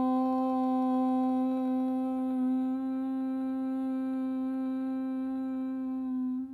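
A woman chanting one long "Om" on a single steady low pitch: the open vowel closes into a hummed "mmm" a few seconds in, and the tone ends near the end.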